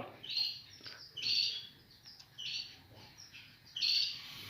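Small birds chirping in short high phrases, about one a second.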